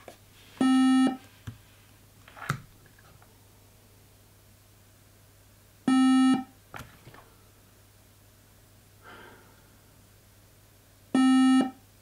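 Late-2013 21.5-inch iMac's startup warning beep, one short tone about every five seconds, three times, with a few faint clicks between. The beeping is the Mac's RAM error signal: the installed RAM is not Mac compatible.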